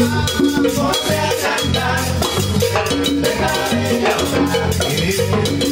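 A live band playing an upbeat tropical cumbia-style dance tune: electric bass, electric guitar and drums with percussion in a steady rhythm, with voices singing at the microphones.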